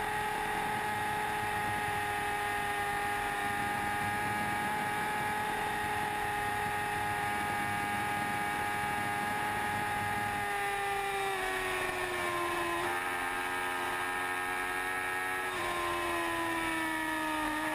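Sportbike engine running hard at high revs with wind rush, holding a steady high pitch. About ten seconds in the revs start to fall as the bike backs off. The pitch then drops in a sudden step, jumps back up briefly a few seconds later and falls away again.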